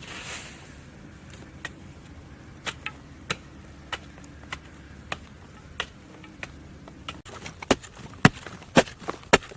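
Hand chopping on wood: light, scattered knocks at first, then from about seven seconds in, louder sharp chopping strokes at roughly two a second.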